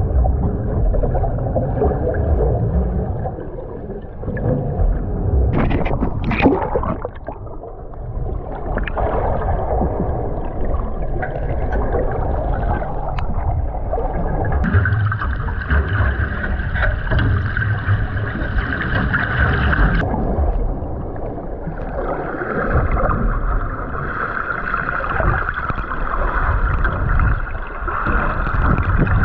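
Muffled underwater sound picked up by a camera held underwater: a steady low rumble of moving water with gurgling, and a few brief knocks about six seconds in.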